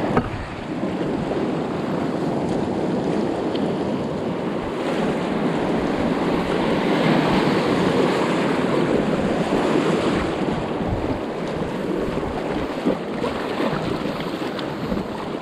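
Whitewater of the Isar rushing around an inflatable kayak as it runs a rapid, heard close to the water, with wind buffeting the microphone. The rush swells toward the middle.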